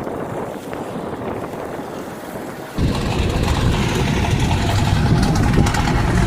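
Wind noise on the microphone, then a loud, steady low rumble that cuts in suddenly about three seconds in.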